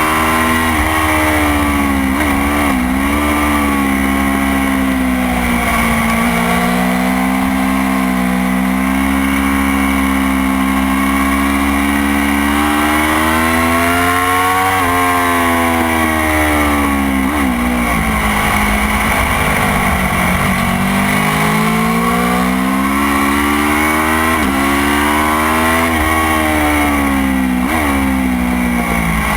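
Motorcycle engine at speed on a race track. The revs climb steadily, drop sharply for a moment at each upshift, and fall away as the bike slows for corners, over a constant rush of wind noise.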